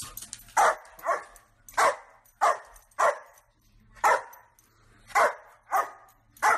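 A dog barking at a parrot: about nine short, sharp barks, irregularly spaced half a second to a second apart.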